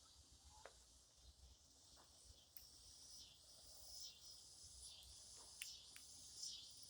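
Faint, steady high-pitched insect chorus: chirring that pulses in short runs, typical of crickets on a summer evening.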